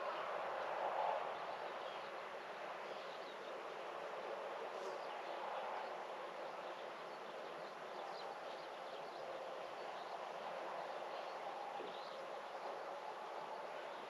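Outdoor garden ambience on a spring morning: a steady, even background hush with faint bird calls now and then.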